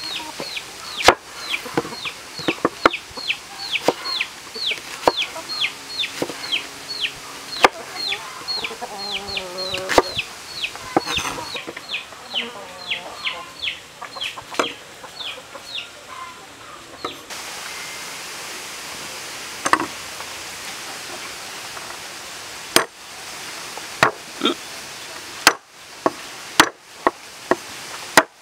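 A knife chopping onion and garlic on a wooden cutting board, making sharp knocks. Over the first half a chick keeps up fast, high, falling peeps, about two or three a second.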